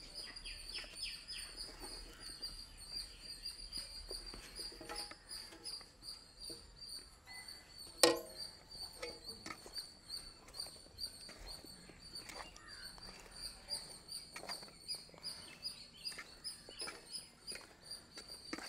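A hand squishing and tossing chopped onion, capsicum and paneer in a thick yogurt marinade in a steel bowl, with birds chirping in the background. One sharp knock about eight seconds in.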